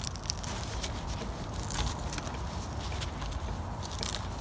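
Hook-and-loop (Velcro) tabs on a canopy top being pulled open and pressed around a metal frame pole, giving short rasping crackles over a steady low rumble.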